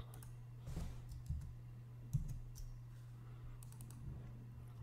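Faint clicks of a computer mouse, with a few soft low thumps, over a steady low hum.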